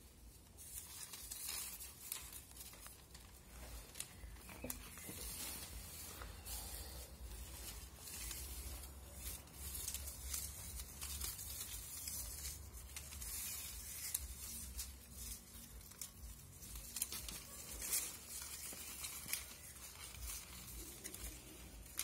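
Newspaper rustling and crinkling as a long folded strip is handled and gathered up, with many short crackles of paper throughout.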